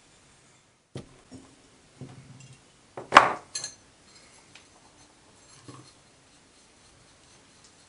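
Copper boiler parts and small tools being handled and set down on a workbench: a few light metallic knocks and clinks, the loudest a sharp clink about three seconds in.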